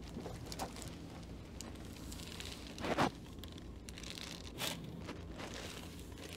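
Spinal joints cracking during a chiropractic extension adjustment: a crunchy pop about three seconds in, then a shorter crack about a second and a half later, with faint rustling and small clicks around them.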